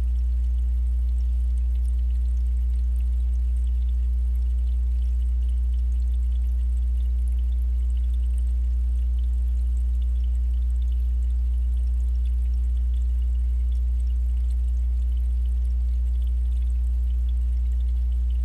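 A steady low hum, unchanging throughout, heard through water, with faint scattered ticks above it.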